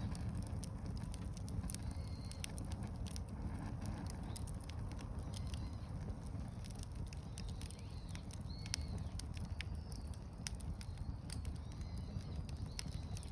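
Wood fire burning, with scattered sharp crackles and pops over a low steady rumble.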